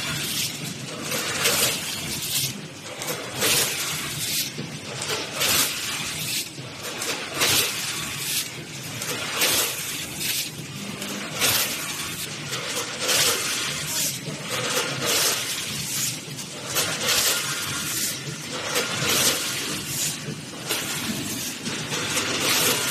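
Automatic laundry and dishwasher capsule doypack packaging machine running, with a sharp, noisy burst repeating roughly once a second.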